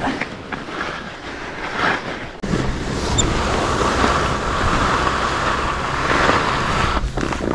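Wind rushing over the microphone and skis hissing over snow as a skier moves. The noise jumps in suddenly about two and a half seconds in and stays steady, with a low rumble, until it dips near the end.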